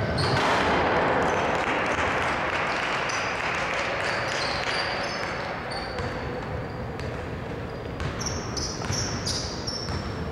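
Basketball game on a hardwood court: many short sneaker squeaks and the ball bouncing, over a rush of noise in the hall that is loudest at the start and fades over the first few seconds.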